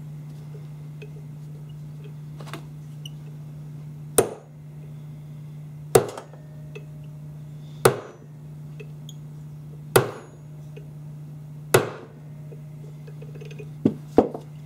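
Ball-peen hammer striking a pin punch to drive a taper pin into an AR-15 front sight block and barrel: five sharp strikes about two seconds apart, then two lighter taps near the end, as the pin is worked down toward flush. A steady low hum runs underneath.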